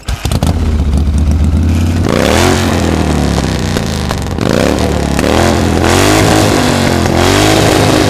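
Harley-Davidson V-twin motorcycle engine idling, then revved up and down several times from about two seconds in, each blip rising and falling in pitch.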